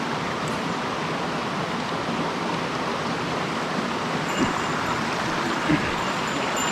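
Small mountain stream flowing over rocks, a steady rush of water.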